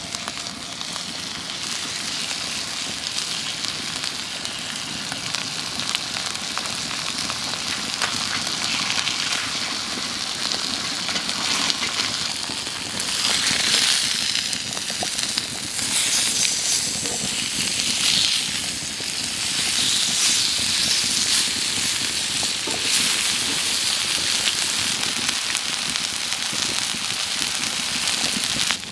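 Spice-rubbed lamb chops sizzling on a hot griddle plate over a wood fire, with crackles and pops. The sizzle gets louder about halfway through.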